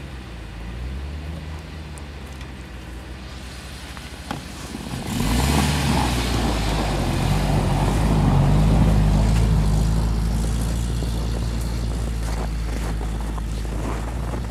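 UAZ Patriot SUV engine revving up and down as it ploughs through deep snow. It gets abruptly loud about five seconds in as the vehicle passes close by, with a rushing hiss of tyres churning snow. It then eases off as the vehicle pulls away.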